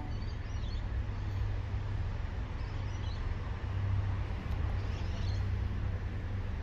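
Small birds chirping in three short bouts, near the start, about three seconds in and about five seconds in, over a steady low rumble.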